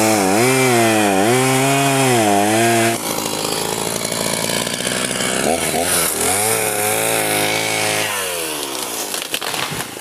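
Two-stroke chainsaw cutting the base of a standing tree to fell it, its engine pitch rising and falling under load. The sound changes abruptly about three seconds in, then the saw runs again and its pitch falls away near the end as it comes off the cut.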